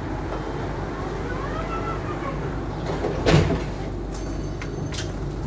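Low-floor electric tram approaching along street-running track over a steady low rumble, with a whine that rises and falls about a second in. A loud, short noisy burst comes a little past the middle, and a few sharp clicks and brief high thin tones follow near the end.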